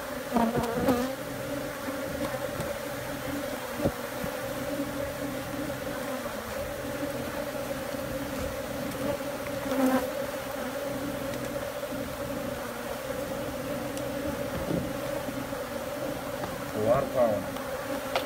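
Steady hum of a disturbed colony of Africanized honey bees flying in numbers as their comb is cut out, swelling louder for a moment near the start, about ten seconds in and near the end, with a sharp click about four seconds in.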